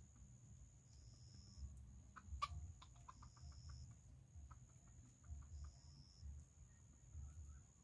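Faint chicken clucking: one sharp cluck about two and a half seconds in, then a quick run of short clucks, and a second run about a second later.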